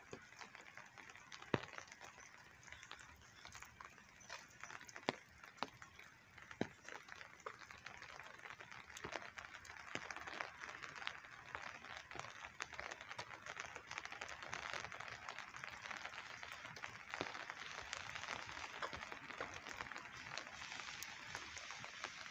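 Footsteps on a wet sidewalk over a steady hiss of light rain, growing a little louder about halfway through, with a few sharper clicks in the first seven seconds.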